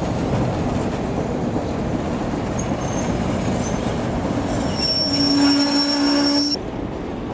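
Diesel locomotive hauling a train of tank cars past, a steady rumble of engine and rolling wheels. About five seconds in, a loud steady squeal with a lower tone beneath it sounds for a second and a half and cuts off suddenly.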